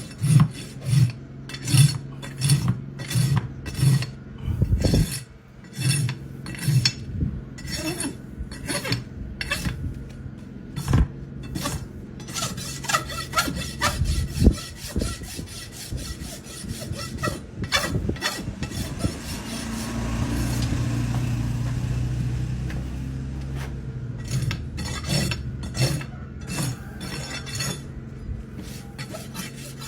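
Farrier's rasp filing a horse's hoof in repeated scraping strokes, about two a second at first, then more irregular. A steady low hum runs underneath and grows louder about twenty seconds in.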